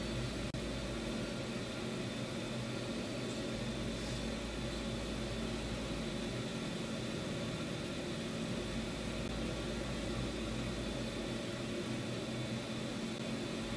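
Steady low hum and hiss of room tone, with a deep rumble underneath that comes and goes every few seconds.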